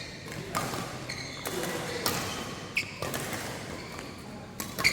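Badminton rally: a shuttlecock struck by rackets several times, sharp cracks about a second and a half apart, with a couple of short squeaks from shoes on the court floor.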